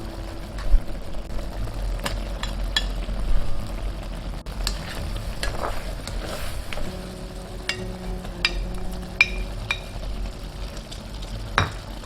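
Seafood, vegetable and rice-cake stir-fry sizzling in a pan as it is stirred, with irregular sharp clinks of the utensil against the pan.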